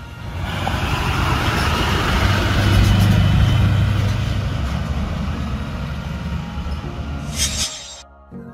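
School bus driving past: its engine and road noise grow louder to a peak about three seconds in, then fade as it pulls away. A short hiss sounds near the end.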